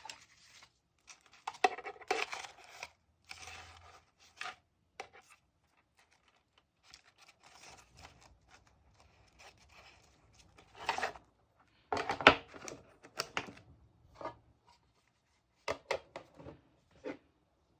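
Paper and stationery being handled while decorating a diary: irregular bursts of paper rustling and tearing, with small taps and clicks in between.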